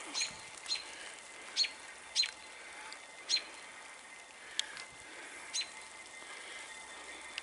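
A small bird calling, about seven short, sharp chirps spaced irregularly, each one a quick downward sweep in pitch.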